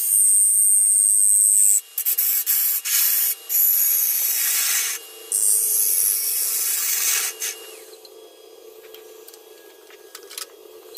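Sandpaper hissing against a figured walnut bowl spinning on a wood lathe, in three strokes of about two seconds each. After that the lathe runs on alone with a steady hum.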